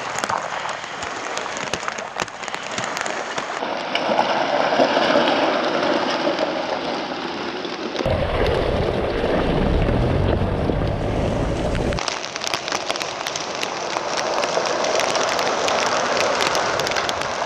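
2022 Ford Bronco Everglades tyres rolling over gravel and beach stones: a steady crackling crunch, with a deeper rumble for about four seconds in the middle.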